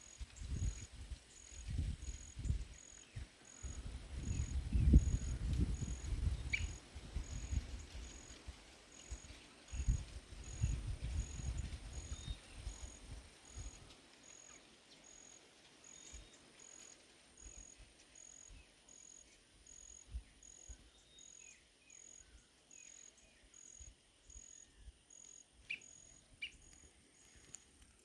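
Outdoor rural ambience: an insect, cricket-like, chirping in an even, steady pulse throughout, with a few short bird chirps. Wind buffets the microphone with low rumbling gusts during the first half, then eases off.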